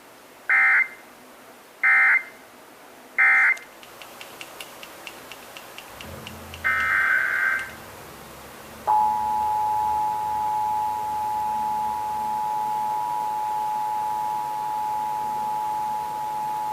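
Emergency Alert System data tones: three short bursts of digital screech closing one test, then a few seconds later a single longer burst opening the next. About a second after it the steady two-tone EAS attention signal starts and holds for about eight seconds.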